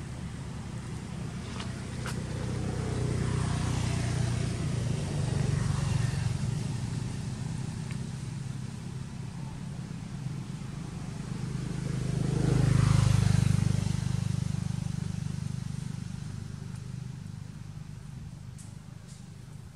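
Motor vehicle engine drone passing by, swelling twice and loudest a little past the middle, then fading away.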